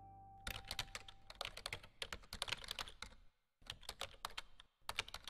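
Rapid, irregular run of light clicks and taps, starting about half a second in and broken by two short pauses near the end.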